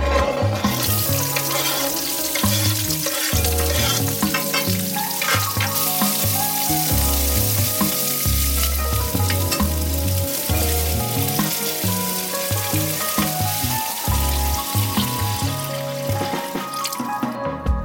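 Food frying in hot oil in a pan: a steady sizzling hiss that starts about a second in and stops just before the end. Background music with a bass line plays underneath.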